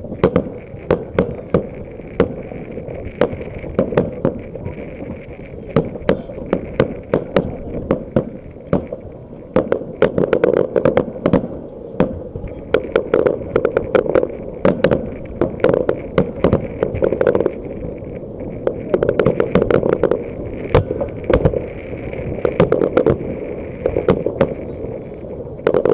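Fireworks salute: aerial shells bursting in a fast, irregular run of sharp bangs, thicker in some stretches than others.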